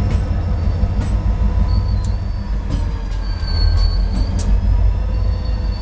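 Freight train rolling past: hopper cars and a Union Pacific diesel locomotive coupled mid-train, with a steady low rumble and a few sharp clanks. A thin, high wheel squeal rises from about three seconds in and stops near four and a half seconds.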